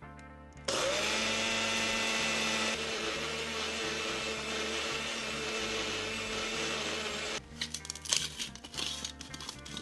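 Personal bullet blender starts suddenly and runs steadily for about seven seconds, grinding granulated erythritol into powder. Its grinding noise softens a little a couple of seconds in. After it stops come a run of clicks and knocks as the blender cup is handled and lifted off the base.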